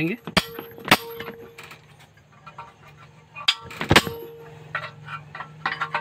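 Hammer striking a cold chisel set against the rusted brake wheel of a washing machine spin motor: sharp metal-on-metal clangs, roughly in pairs, each with a brief ring, the loudest about four seconds in. The blows are driving the rust-seized brake wheel off the motor shaft.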